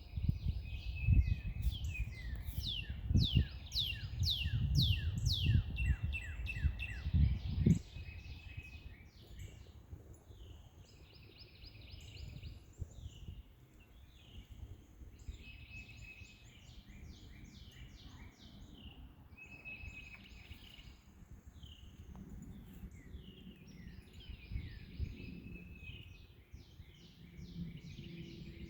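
Songbirds singing outdoors: repeated phrases of quick, high, downward-sliding notes with short pauses between them. A low rumbling noise, likely wind on the microphone, is loudest through the first eight seconds and then drops away.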